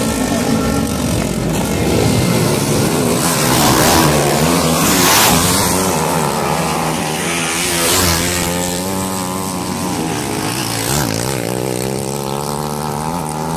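Several motocross dirt bike engines racing past on a dirt track, revving up and down with the pitch rising and falling. Loudest about four to five seconds in.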